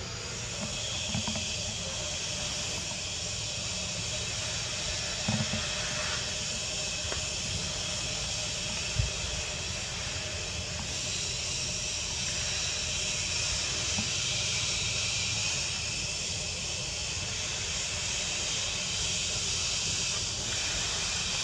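Steady high-pitched buzzing hiss of forest insects, changing slightly in pitch partway through, over a low rumble with a few soft knocks.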